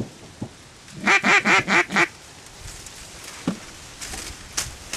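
A quick run of five loud duck quacks about a second in, over within a second.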